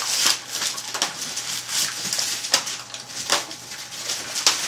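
Wrapping paper being torn and crumpled off a large gift box: irregular crackling with several sharp rips.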